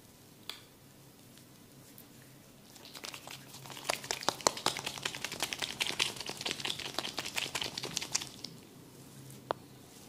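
Oiled hair and scalp being massaged at close range: a fast, dense crackling that starts about three seconds in and stops after about five seconds, with a single click before it and another near the end.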